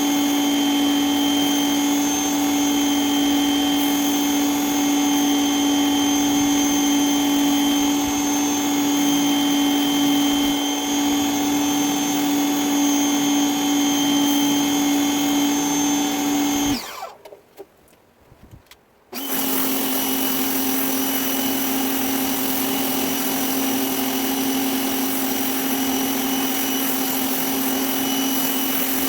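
Greenworks 2000 psi electric pressure washer running steadily, its motor and pump giving a constant hum under the hiss of the spray. About two-thirds of the way through it stops abruptly, is silent for about two seconds, then starts up again and runs on.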